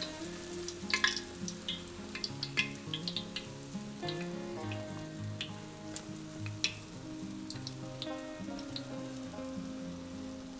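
Fry bread dough frying in hot vegetable oil in a frying pan: a steady sizzle broken by scattered sharp crackling pops.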